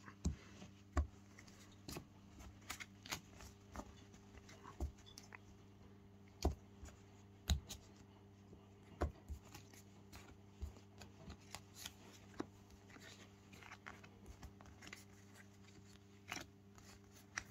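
A small stack of cards being shuffled one-handed: irregular soft flicks and taps of card on card, over a faint steady hum.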